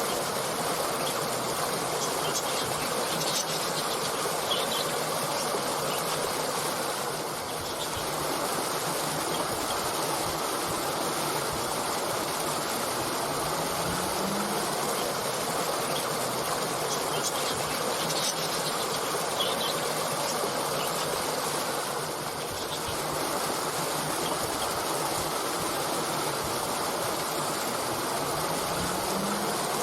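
Steady rush of a flowing stream, with a few faint bird chirps. A short low rising hum comes about halfway through and again near the end.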